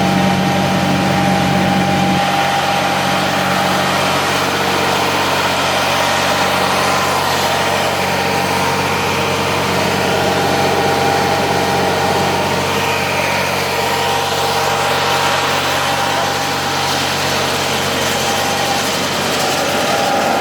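Tractor-driven hazelnut harvesting machine running steadily: a constant engine drone with a steady high whine over it.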